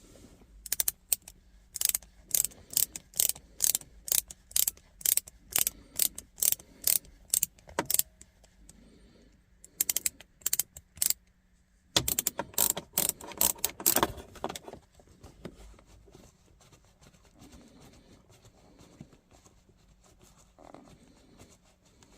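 Ratchet driver with a T25 Torx bit clicking in quick, even strokes as the screw holding a shift knob is backed out. The clicks run steadily, break off briefly, then come faster in a second run before stopping.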